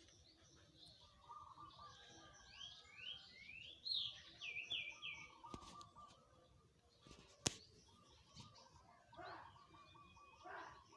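Songbirds chirping and calling, with a run of about half a dozen quick rising whistled notes between roughly 2.5 and 5 seconds in. A single sharp click comes about 7.5 seconds in.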